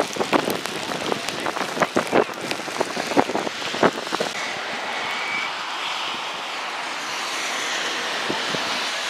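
Steady rain and wind hissing on the microphone, with a run of irregular sharp taps in the first four seconds.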